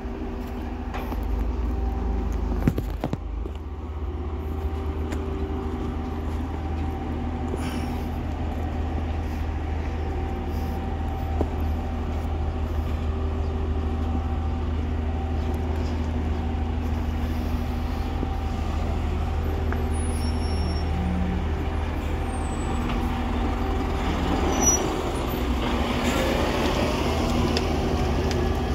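A vehicle engine running steadily with a low rumble while driving, with an occasional short knock. Near the end the engine note rises and grows louder as it accelerates.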